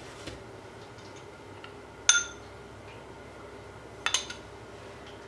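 A metal spoon clinking against a ceramic bowl of sauce: one sharp, ringing clink about two seconds in, then a quick run of clinks near the end.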